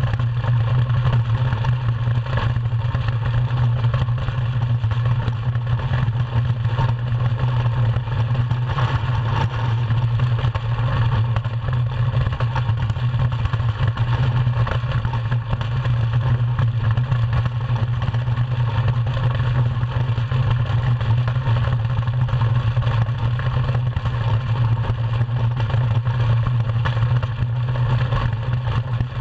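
DN iceboat under sail: its steel runners scraping over the ice, heard through the hull as a steady low rumble with a hiss above it.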